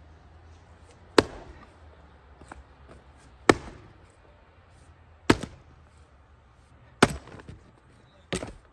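An axe striking a big wooden stump, splitting firewood off its edge: five sharp chopping blows, roughly one every two seconds, the last one lighter.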